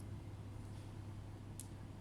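A steady low hum with a single light click about one and a half seconds in.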